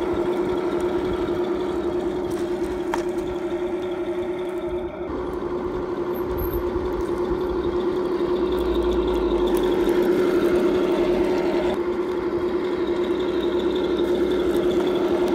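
Heng Long 1/16 radio-controlled KV-1E tank driving, with a steady mechanical whine and hum from its drivetrain. The sound changes character about five seconds in and again near twelve seconds.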